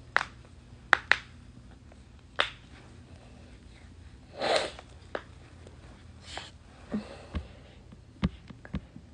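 Scattered sharp clicks and taps from hands handling and fidgeting close to the phone's microphone, about a dozen in all, with one short noisy rush, like a breath or sniff, about halfway through.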